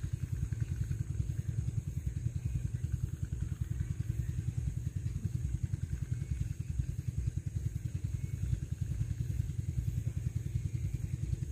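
A small engine running steadily, with a fast, even low pulsing throughout.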